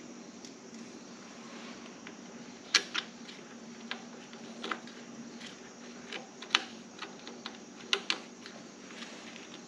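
Sharp, irregular metal clicks and taps of a small hex key and screw as a badge plate is fitted onto a steel motorcycle crash bar, over a steady low hum.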